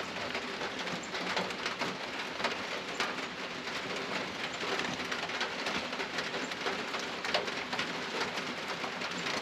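Steady rain falling, an even hiss with scattered small drip ticks.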